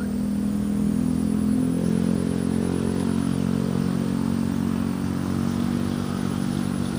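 A small engine running steadily, its pitch rising a little about two seconds in and then holding.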